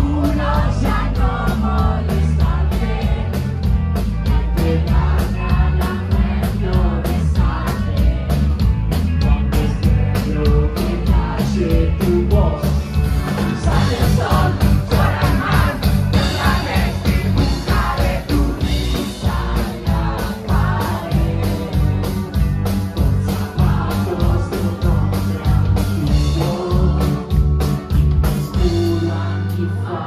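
A rock band playing, with lead vocals over electric guitar, bass and a steady drum beat. The music drops away near the end.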